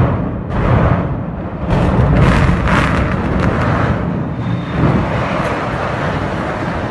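Grain elevator explosion: a loud, deep rumble that swells in several surges of blasts.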